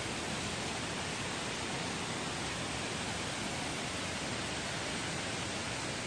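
Steady, even rush of a two-tier waterfall, with no other event standing out.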